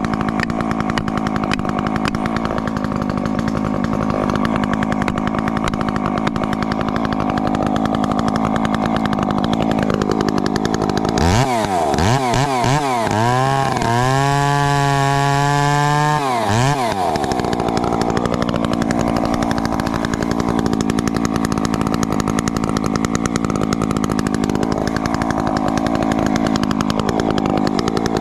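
Husqvarna 350 two-stroke chainsaw running at a steady, lower working pitch, as when held down under load in a cut. About eleven seconds in, the engine revs up high, its pitch swinging up and down for some five seconds, then drops back to the steady working note, rising again right at the end.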